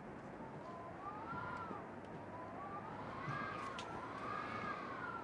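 Emergency-vehicle siren wailing, its pitch sweeping slowly up and down about every second and a half, with a couple of sharp ticks about four seconds in.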